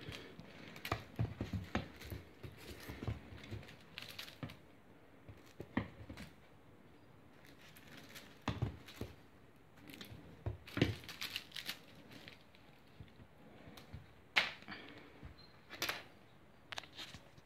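A Bengal kitten pouncing on a feather wand toy: irregular patter and scrabbling of paws and claws on a wooden floor, with soft thumps and rustles of the feathers.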